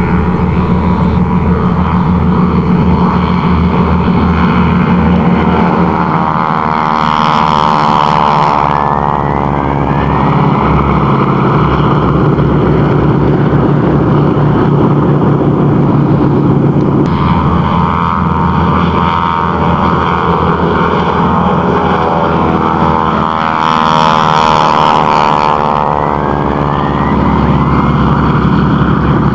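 Pratt & Whitney R-1340 nine-cylinder radial engines of two North American Harvard trainers droning as the pair flies by. The sound grows brighter with a sweeping pitch twice, about a quarter of the way in and again past the three-quarter mark.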